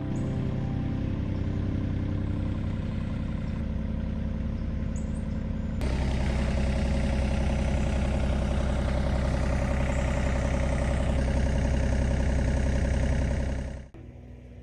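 Engine running steadily at a low speed, suddenly louder from about six seconds in, then cutting off sharply near the end.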